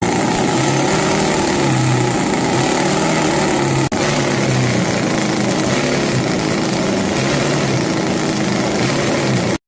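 Miniature nitro-methane supercharged V8 RC boat engine running loud and steady at high revs. The sound breaks off for an instant about four seconds in and cuts off abruptly just before the end.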